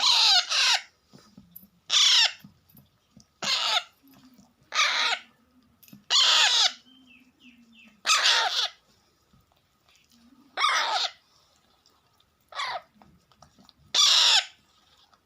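Baby Alexandrine parakeet giving hungry begging calls. There are about nine loud, harsh, falling squawks, one roughly every second and a half.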